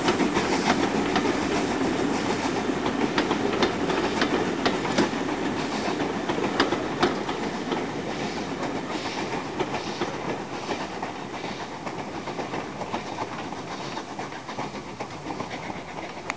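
Railway passenger coaches rolling past, their wheels clicking over the rail joints. The sound fades steadily as the train moves away.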